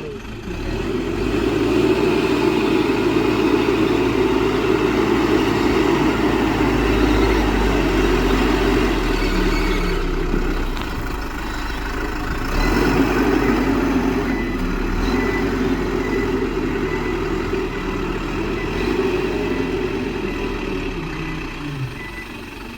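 Diesel engine of heavy earthmoving machinery running under load. It swells about a second in, eases off briefly around the middle, picks up again, and dies down near the end.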